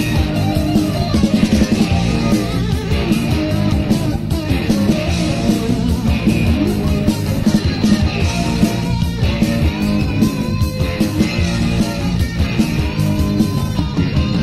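Upbeat Burmese rock song playing, a guitar-led band over a steady beat.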